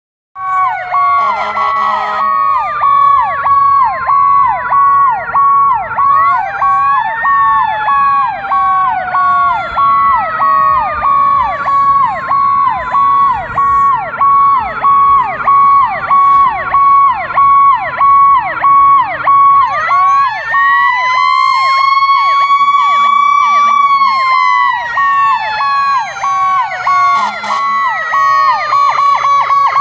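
Fire apparatus sirens: a mechanical Q siren winds down in one long falling wail, is spun back up about 20 seconds in, holds near its peak for a few seconds, then coasts down again. Fast-sweeping electronic sirens and a steady pulsing tone run over it, with a few short, low air horn blasts.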